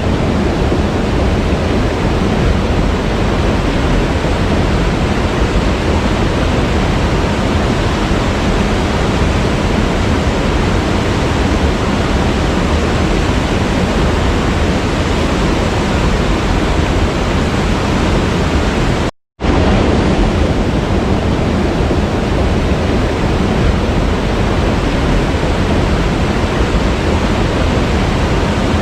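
Waterfall: a steady rush of falling water, with a brief gap of silence about two-thirds of the way through.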